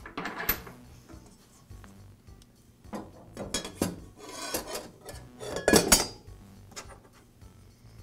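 Metal clinks and scrapes as a table saw blade is handled and slid onto its arbor and the outer flange is fitted by hand, with the loudest clatters around three to four seconds in and again near six seconds.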